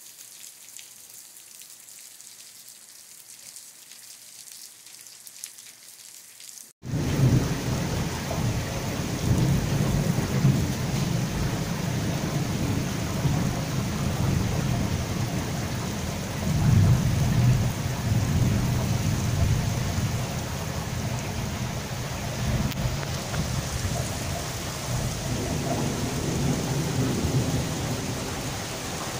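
Light rain falling, a soft steady hiss; about seven seconds in it cuts to a much louder heavy downpour with a deep rumble underneath that swells and fades.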